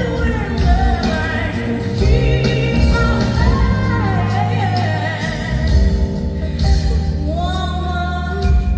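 Pop song with a woman singing over a steady bass and beat.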